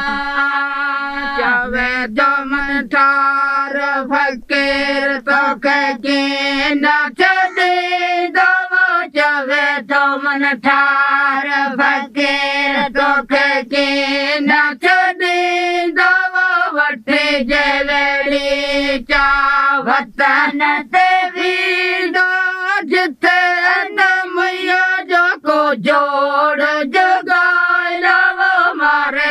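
A group of women singing a folk song together in long held, drawn-out notes.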